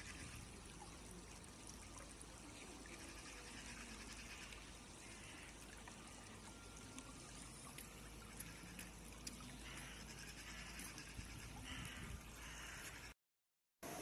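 Faint, steady trickling of a shallow stream running over stones. The sound drops out briefly near the end.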